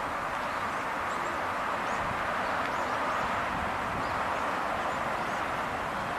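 Steady outdoor background noise with a few faint, brief bird chirps high above it.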